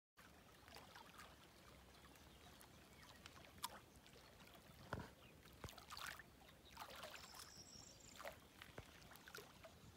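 Faint small waves lapping at the water's edge, with a few soft ticks and a brief high chirp a little past the middle.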